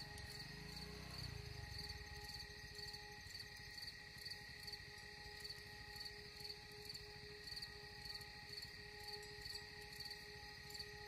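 Faint, steady insect chirping, pulsing about twice a second over a constant high hum.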